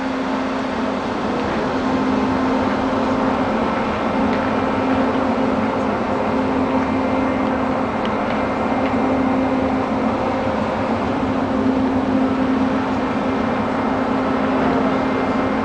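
Steady mechanical drone of a ferry's engines and machinery heard from its deck as it docks, an even hum with one constant low tone.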